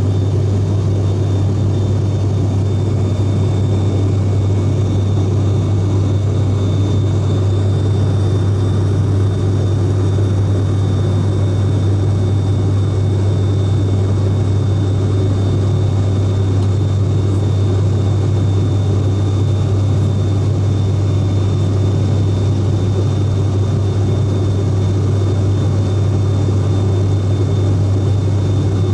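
Cabin drone of an ATR 42-600 turboprop in flight: the propellers make a steady low hum with rushing air noise, plus a faint thin whine above it.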